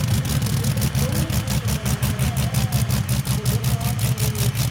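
The big multi-cylinder engine of a modified pulling tractor idling steadily, with a rapid, even pulse.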